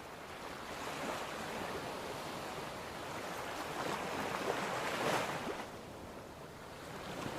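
Surf washing onto a beach: an even rush of water that swells, falls back about six seconds in, then builds again.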